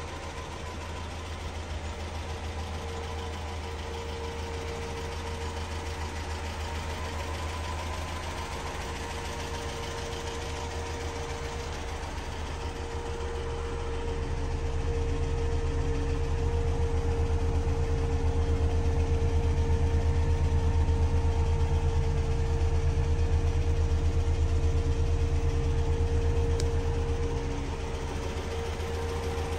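1972 Land Rover 88 Series III's 2.25-litre four-cylinder petrol engine idling steadily. It grows louder about halfway through and drops back near the end, without a change in pitch.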